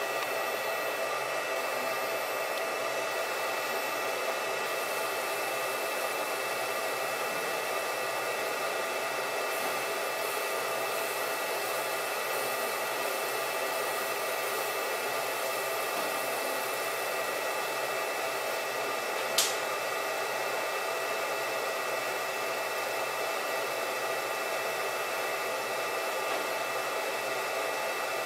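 Handheld fiber laser marking machine running while it marks a metal plate: a steady whir with several faint steady tones. A single sharp click comes about 19 seconds in.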